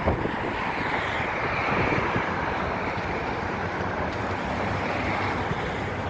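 Boeing 737 jet engines heard as a steady rushing roar that swells a little in the middle and then eases, with wind buffeting the microphone.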